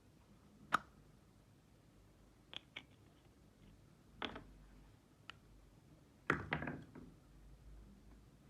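Scattered sharp clicks and taps: one a little under a second in, two close together a little before the middle, another just after it, and a quick cluster of several near the end.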